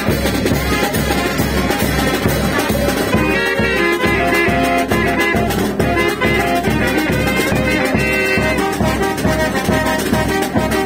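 Brass band dance music: horns playing a melody over a steady, even beat.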